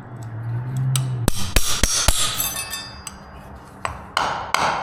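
Hammer striking a carpet tack-strip nail stuck in a concrete floor to knock it out: a series of sharp, irregular blows.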